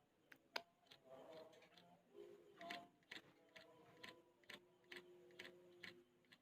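Yellow-vented bulbul nestling begging for food with short, sharp, high ticking calls, about two a second, faint.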